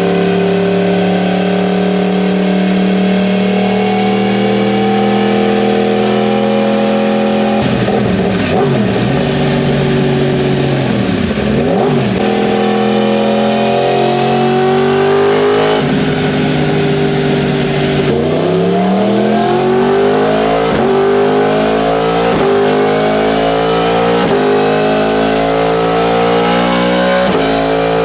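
2018 Yamaha R1's crossplane inline-four running loud on a dyno through a Spark Grid-O exhaust with the dB killer removed. It holds a steady pitch for about seven seconds, wavers, then rises in pitch through the last ten seconds as it is revved up.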